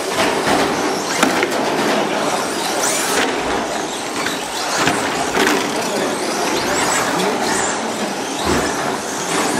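RC short-course trucks racing, their motors whining up and down in pitch as they accelerate and brake, over a steady hiss.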